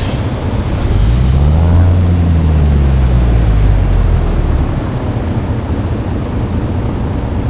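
International truck's diesel engine revved up about a second in and easing back down over the next few seconds, then running on. A brief high whistle comes with the rev.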